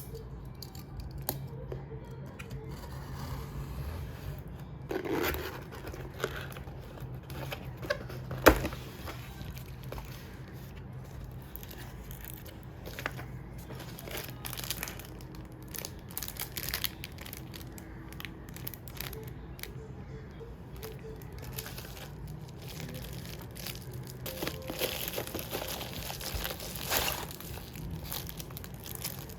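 Packaging being unwrapped by hand: paper or wrapping crinkling, rustling and tearing in irregular handfuls, with a sharp click about eight seconds in and a denser stretch of crinkling near the end.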